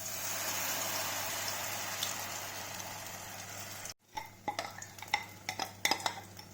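Semolina batter sizzling as it is poured into a hot oiled non-stick pan, a steady hiss that slowly fades. After a sudden break about four seconds in come light clicks and scrapes of a utensil spreading the batter in the pan.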